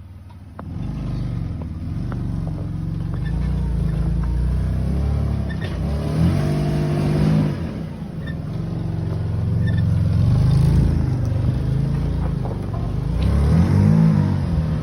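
Off-road 4x4's engine pulling at low speed under load while crawling over rocks, with the throttle coming in about half a second in and two revs, one in the middle and one near the end.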